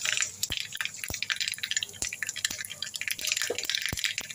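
Mustard seeds sizzling in hot oil in a kadai, starting to splutter. Sharp pops come about every half second and more often near the end.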